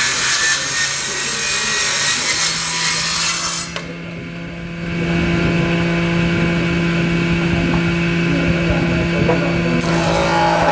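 An electric power tool working wood: its motor keeps a steady hum while the wood gives a loud rasping cutting noise. The noise drops away for about a second about four seconds in, then resumes, surging again near the end.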